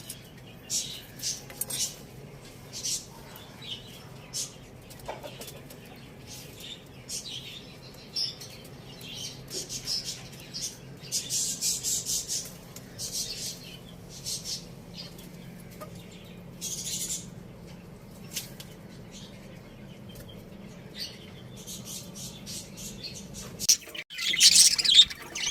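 Small pet birds chirping in short, scattered bursts, becoming louder and denser near the end.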